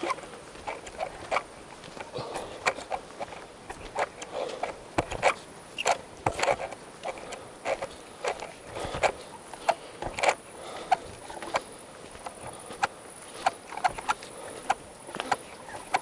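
Footsteps crunching on a dry dirt-and-gravel track at a steady walking pace, about two steps a second.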